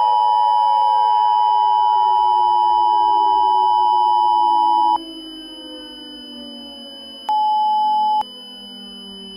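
A loud, steady electronic alert tone of the kind used as an Emergency Alert System attention signal, which cuts off about five seconds in. It sounds over a quieter synthesized drone that slowly falls in pitch, and a second, shorter beep lasting about a second comes near the end.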